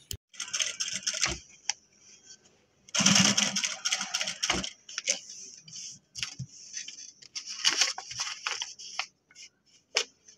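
Short irregular spurts of rustling and clicking as upholstery fabric is handled and fed at an industrial sewing machine, the longest and loudest about three seconds in.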